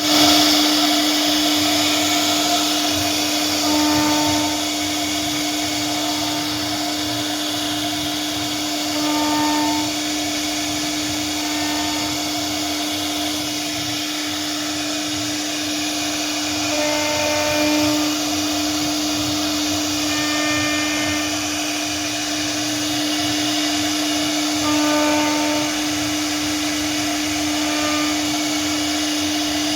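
CNC router spindle running steadily and carving wood, with a constant high-pitched whine, while shorter higher tones come and go every few seconds.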